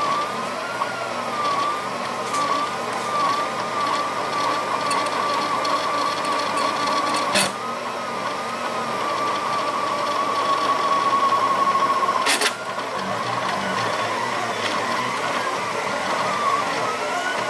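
Overlord Pro delta 3D printer's stepper motors whining as it moves, the pitch wavering up and down in quick repeated swoops and then holding steady for a few seconds; two sharp clicks about halfway and about two-thirds through. This is the printer noise the owner reports as a fault.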